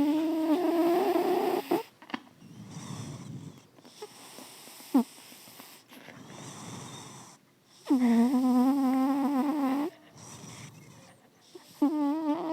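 Cat snoring in its sleep: two drawn-out, tonal snores of about two seconds each, one at the start and one about eight seconds in, with a shorter one near the end and quieter breathy breaths between. A brief sharp click about five seconds in.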